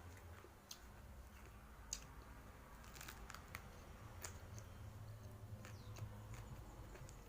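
Faint eating sounds: chewing with scattered small clicks and crunches, over a low steady hum.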